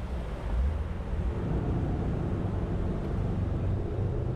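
Twin gasoline inboard engines of a cruising motorboat running at low speed, a steady low rumble.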